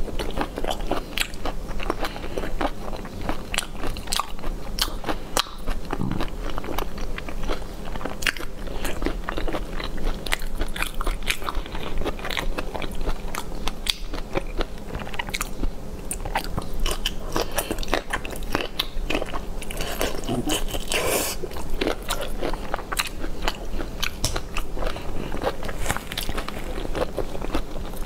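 Close-miked eating of a whole fish in chili sauce: biting and chewing with many small crunches and clicks, without a break.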